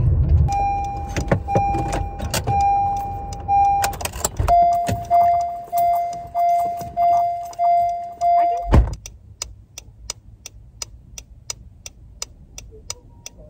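A car's warning chime beeps repeatedly, about once a second at first, then in a faster, slightly lower run. About nine seconds in, a heavy thump, typical of a car door shutting, cuts the beeping off. A steady, fast ticking follows.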